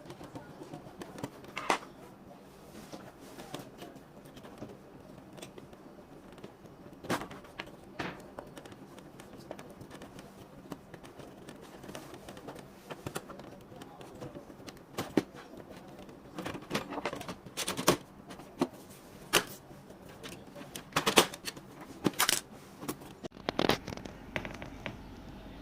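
Scattered clicks, taps and light scrapes of plastic and metal parts of an HP Pavilion all-in-one PC being handled during disassembly. The knocks come more often and more sharply in the second half.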